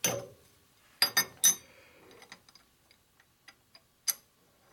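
Metal-on-metal clinks and light ticks from a threading die being handled and set in its holder: three sharp, ringing clinks about a second in, a few fainter ticks, then one more clink near the end.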